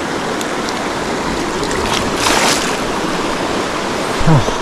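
River water rushing steadily in heavy rain, an even hiss of current and rainfall, with a brief louder swell of hissing about halfway.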